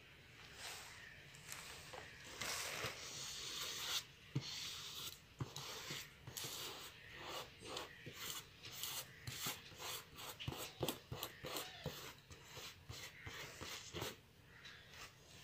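Paper rustling and rubbing as hands handle and smooth a printed paper photo flat on white paper over cardboard. A hiss of rubbing in the first few seconds, then a run of short crackles and taps.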